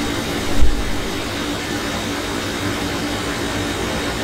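Steady rushing background noise with a faint hum, like a fan or air conditioner running, with one low thump about half a second in.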